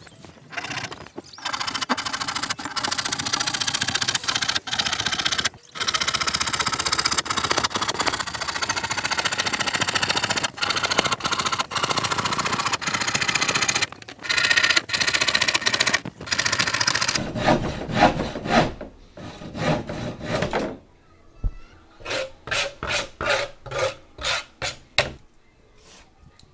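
Handsaw cutting through a plywood sheet: a long run of rasping strokes with brief pauses. Near the end it turns into about a dozen short, separate strokes, roughly three a second, as the cut is finished.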